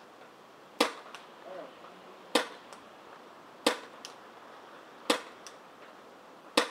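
Tiberius T9 CO2 paintball pistol firing five shots about a second and a half apart, each a sharp pop followed by a much fainter tick.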